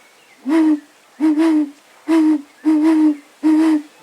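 Calabash-gourd (jícaro) bird-call whistle blown in a series of five low, breathy hoots, about one every three-quarters of a second, imitating an owl-like bird call.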